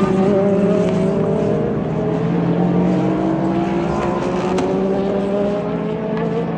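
Race car engines at full throttle, their pitch climbing steadily over several seconds as the cars accelerate.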